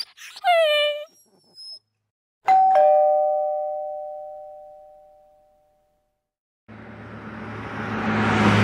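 A two-tone "ding-dong" doorbell chime about two and a half seconds in, its two notes ringing out and fading over about three seconds. Near the end a steady mechanical noise with a low hum starts and grows louder.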